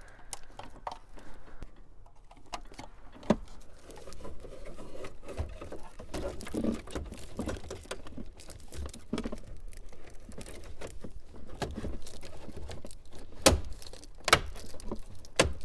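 Rustling and clicking as a Sony double-DIN car radio, still wrapped in its plastic bag, is worked back into the truck's dash opening with its wiring harness behind it. Scattered small clicks, with a few sharper knocks, most of them near the end.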